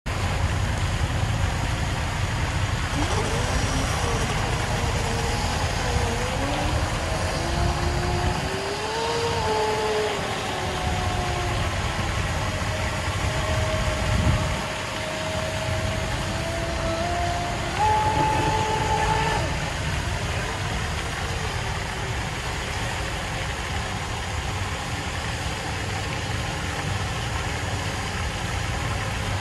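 Whine of an RC boat's electric motor, gliding up and down in pitch as the throttle changes, from a few seconds in until about two-thirds of the way through. A steady low rumble and hiss run underneath.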